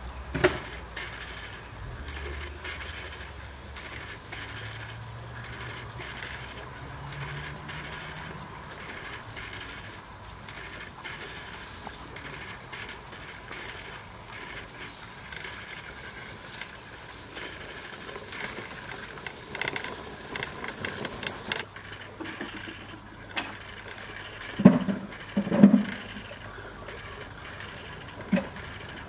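G-scale model electric tram running on garden track: a steady whir of its electric motor and gearing that rises in pitch over the first few seconds, with light clicking of wheels over the rails. Two or three sharper knocks come near the end.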